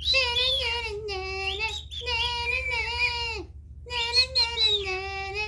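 A child singing a wordless tune in long held notes, three phrases with a short break between each.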